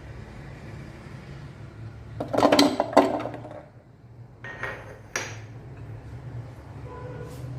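Kitchenware clattering and knocking, loudest for about a second a couple of seconds in, with a shorter clatter about two seconds later.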